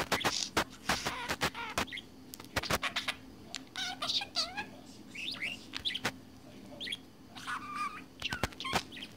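Pet budgerigar chattering to itself: a quick run of clicks mixed with short warbled, squeaky notes, broken by brief pauses.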